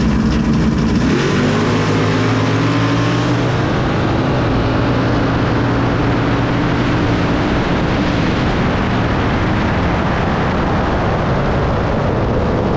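Drag-racing car engines at full throttle. About a second in, the engine note climbs steeply as the cars pull away, levels off after a few seconds, and then blends into a loud, rough rush of engine and exhaust noise.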